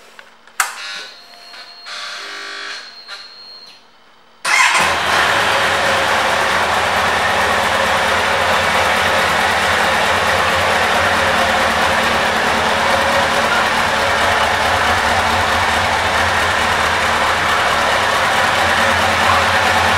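2003 Kawasaki Z1000's inline-four engine starting. A click and a short whirring come after the key is turned, then the engine catches about four and a half seconds in and idles steadily.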